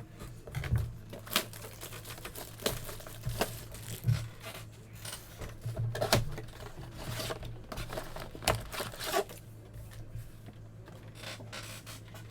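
Trading card pack wrappers being torn open and crinkled, with irregular rustles and clicks as the cards are handled, over a low steady hum.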